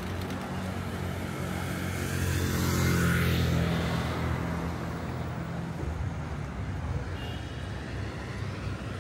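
A motor vehicle passing by: a low engine hum and road noise that swell to their loudest about three seconds in, then fade away.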